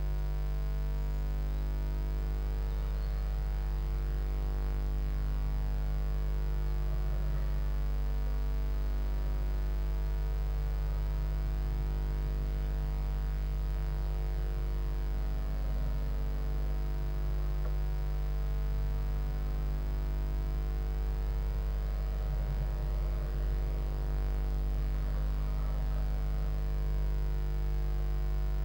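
Steady electrical mains hum, a low buzz with a fixed stack of overtones, on the audio of a nest-box camera.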